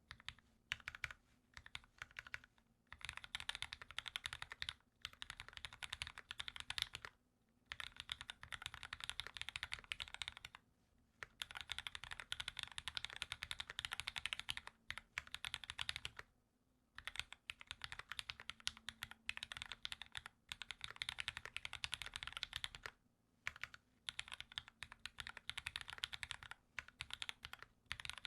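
Dolphin Linger RE custom keyboard with an aluminium plate and lubed Cherry retooled Black linear switches, typed on fast in runs of a few seconds broken by short pauses.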